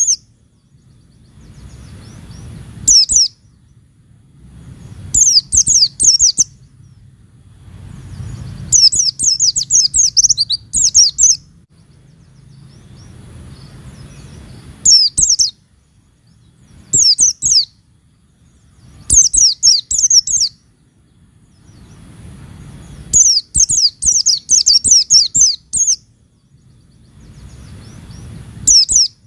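Pleci (white-eye) giving bursts of rapid, high, twittering chirps, about eight bursts of up to three seconds each with short pauses between. This is the fast "nembak" style of singing used as a lure to set other pleci singing.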